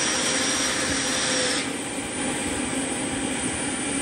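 Small model gas-turbine engine of an RC MD 600N helicopter running, a steady jet-like rush. A thin high whine and a lower tone in it stop about a second and a half in, and the sound drops slightly.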